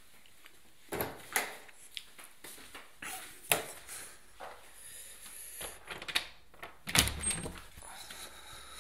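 A string of knocks and clunks from footsteps and a door being opened and passed through, with the loudest, heaviest thud about seven seconds in.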